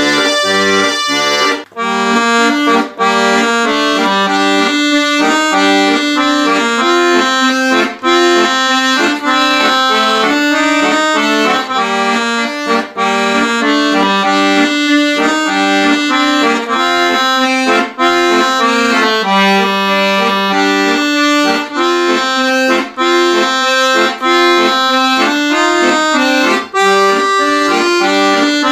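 Excelsior piano accordion playing a tune: the right hand plays melody on the keyboard over the left hand's bass and chord buttons, with a few short breaks between phrases.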